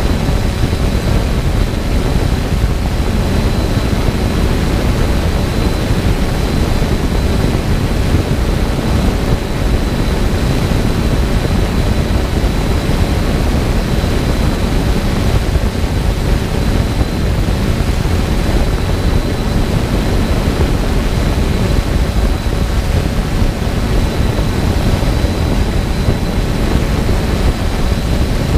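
Multirotor drone's electric motors and propellers running steadily while it hovers, a constant loud whirring with a thin high whine held at one pitch.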